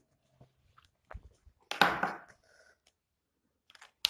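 Faint marker strokes and knocks on a whiteboard, with a short scraping sound around two seconds in and a sharp click near the end.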